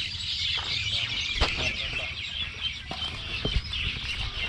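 A dense chorus of many birds chirping at once, with a few sharp knocks from handling gear close by.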